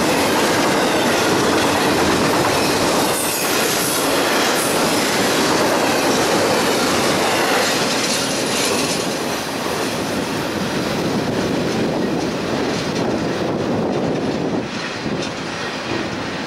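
Double-stack intermodal freight train passing close by, its container well cars rolling over the rails in a steady, dense rumble. The sound dies down a little near the end as the last car goes by.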